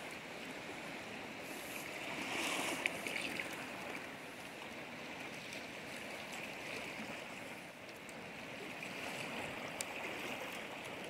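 Steady wash of sea surf on the shore, swelling a little about two to three seconds in, with a couple of faint clicks.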